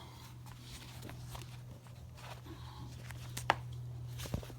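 Faint handling and rustling noises with a sharp click about three and a half seconds in and a softer knock shortly after, over a steady low hum.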